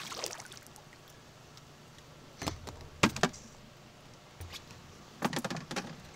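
Gear being handled on a fishing boat: a few short clusters of clicks and knocks, about two and a half, three and five seconds in, over a faint steady low hum.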